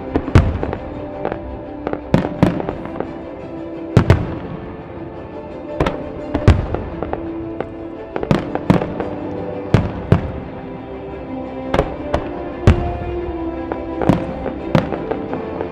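Aerial fireworks shells bursting: an irregular run of sharp booms, some in quick pairs, about twenty in all, with music playing underneath.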